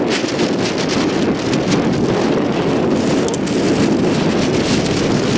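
Wind buffeting the microphone: a loud, steady rushing noise with scattered crackles.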